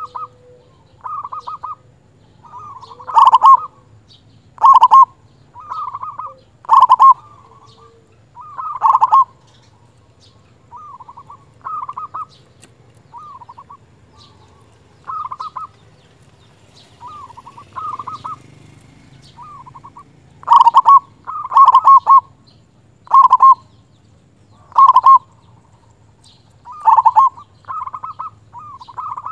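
Zebra dove (perkutut) cooing. It gives short phrases of rapid pulsed coos, repeating every second or two. Some phrases are loud and others much fainter, with a stretch of mostly faint phrases in the middle.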